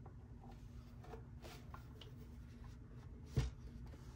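Faint handling noise of a plastic Houselyla personal air cooler being turned in the hands: light rubbing and scraping, with a single soft bump about three and a half seconds in.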